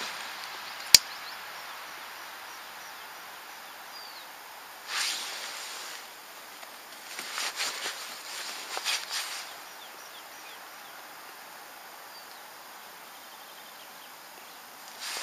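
A pocket lighter is struck and worked at the end of a synthetic cord: a sharp click about a second in, then short scratchy strikes around five seconds and again in a cluster between about seven and nine and a half seconds, over a quiet steady outdoor hiss.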